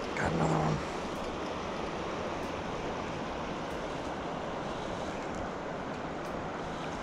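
Steady rush of flowing river water, with a brief low pitched sound about a quarter second in.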